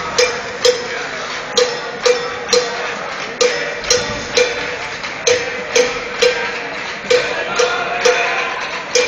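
A cowbell struck over and over in a steady beat, about two clanks a second, each with the same ringing pitch, over constant arena crowd noise.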